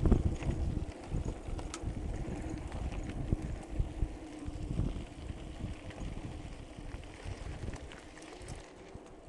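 Wind buffeting the microphone over the rumble and rattle of a mountain bike descending a rough dirt track, with irregular jolts and a hard knock at the very start. The rumble eases near the end.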